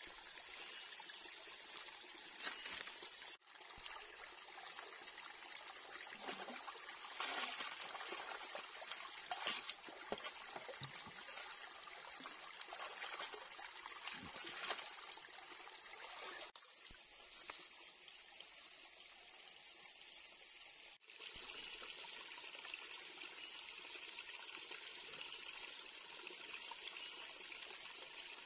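Running water in a shallow stream, with splashing and sloshing as a cooking pot is dunked and rinsed in it.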